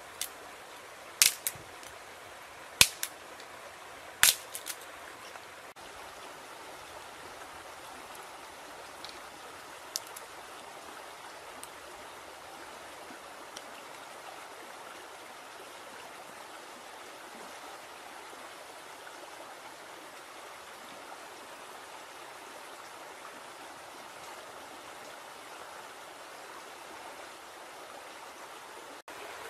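Steady rushing noise like flowing water. Several sharp clicks and knocks come in the first five seconds, and one fainter click comes about ten seconds in.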